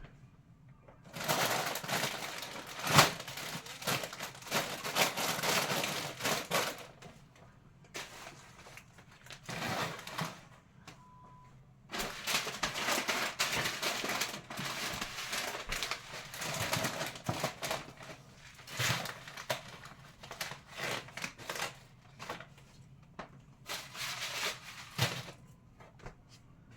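Plastic food packets rustling and crinkling as they are handled and packed into a storage container, in bouts of a few seconds with sharp clicks and knocks among them.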